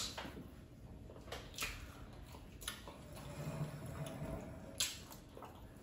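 Quiet eating by hand: a few soft, scattered clicks and smacks from mouths and fingers as fish and okra soup are picked apart and chewed.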